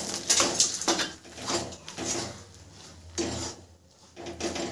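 Almonds pouring into a steel kadai of hot jaggery syrup, then a spatula stirring them through. It scrapes and clatters against the pan in repeated strokes.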